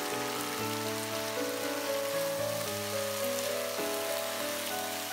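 Stir-fry sizzling steadily in a nonstick wok as cooked beef slices are tipped in and stirred through the vegetables with a spatula, under background music with held notes.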